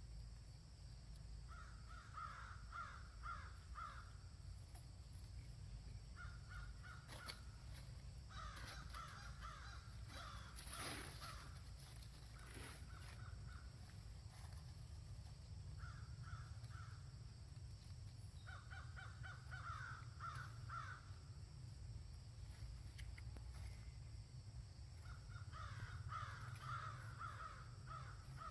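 Faint, harsh caw-like animal calls in short bouts of a second or two, repeated about six times, over a steady low rumble.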